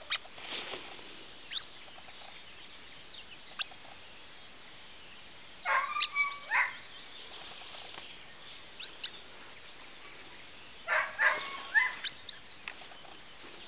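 Small birds chirping: scattered short, high chirps, with two clusters of louder, lower calls about six and eleven seconds in.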